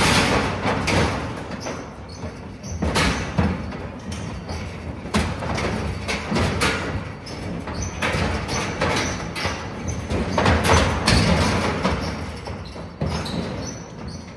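Horses moving inside a metal stock trailer during loading: irregular hoof thumps and knocks against the trailer floor and sides, with metal gate rattles, over background music.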